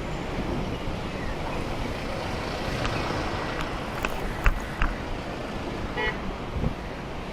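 Road traffic and wind noise heard from a moving bicycle in city traffic, with two short knocks about four and a half seconds in and a brief horn toot about six seconds in.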